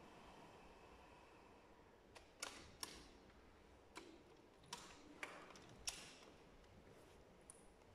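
Near silence with room hiss, broken by about seven soft, short clicks and taps between about two and six seconds in: a bayan's fittings and buttons being handled while it is held at rest.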